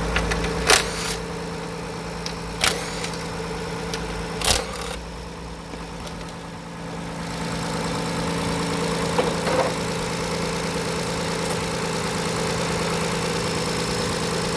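Kia Carnival 2700 LPG engine idling warm, with a faint ticking still there but much reduced since the cold start. The mechanic reads this fading as the mark of piston slap rather than a tappet fault. Three sharp clicks stand out in the first five seconds.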